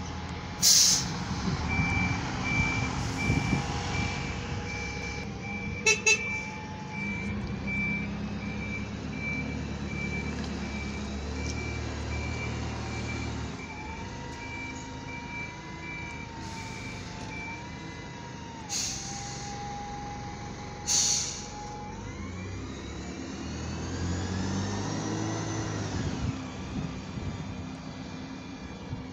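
Diesel buses manoeuvring: a reversing alarm beeps in a steady pulsing run for about sixteen seconds over the running engines, with short sharp air-brake hisses near the start and twice later on, then a bus moves off with a rising engine and gear whine.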